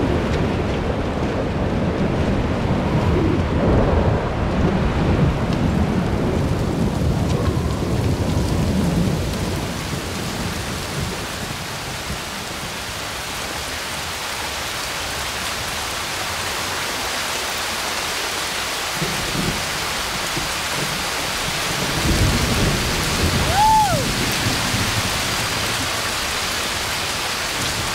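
Heavy thunderstorm: steady rain falling on pavement, with rolling thunder that rumbles through the first ten seconds, eases, and rolls again about 22 seconds in.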